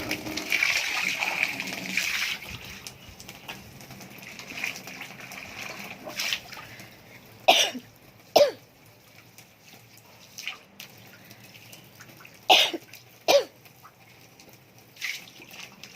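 A woman coughing in two short bouts of two coughs each, about seven and a half and twelve and a half seconds in: a cough brought on by breathing wildfire smoke, which leaves her throat itchy. A hose spray of water hisses for the first couple of seconds, then stops.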